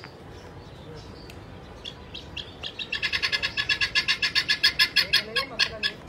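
A bird calling: a rapid run of short, high chirps that starts sparse, speeds up to about eight a second and grows louder, then stops just before the end.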